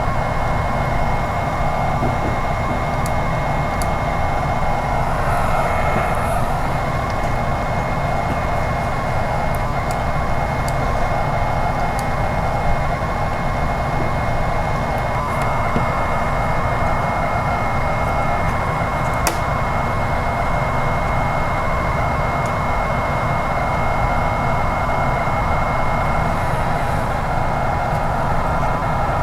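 TRS-80 Color Computer cassette output during a CSAVE: a loud, continuous data warble made of its two save tones, with a thin steady whistle running through it. The owner finds its ones come out of the machine's DAC at uneven strength.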